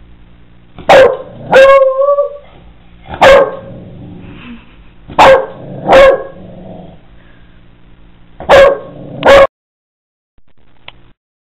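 Dog barking: seven loud, short barks, some in quick pairs, with pauses of one to two seconds between them, stopping about two seconds before the end.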